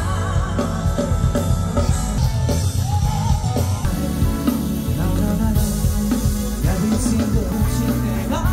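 Live pop-rock band on an outdoor festival stage, heard through the PA from the audience: a singer over drums, bass and guitar, heavy in the bass.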